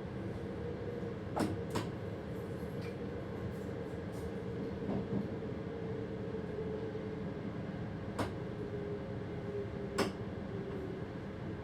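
Passenger train running, heard from inside the driver's cab: a steady rumble with a faint wavering hum. Four sharp clicks stand out, two about a second and a half in and two more near the end.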